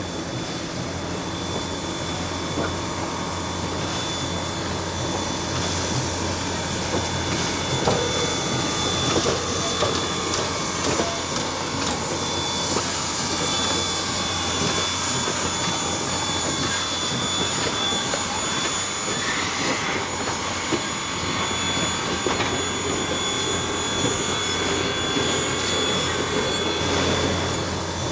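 Chesapeake & Ohio 1309, a Baldwin-built 2-6-6-2 articulated Mallet steam locomotive, working along the track: a steady rush of exhaust and steam, growing a little louder over the first few seconds.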